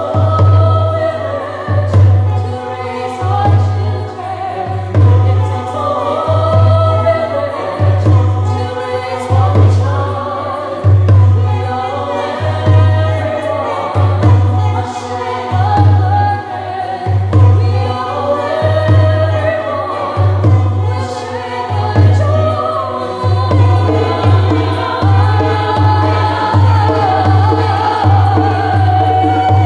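Women's chorus singing together in harmony, over a steady low beat that comes roughly once a second.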